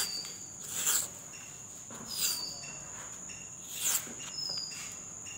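Masking tape rasping as it is pulled off the roll in short strokes, about four in the few seconds. Under it runs a steady high-pitched insect drone with short repeated chirps.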